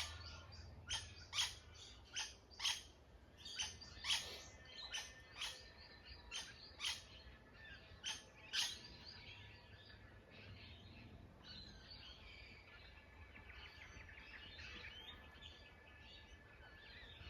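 Wild birds calling outdoors: a run of sharp, repeated calls about two a second for the first nine seconds or so, then softer twittering from several birds.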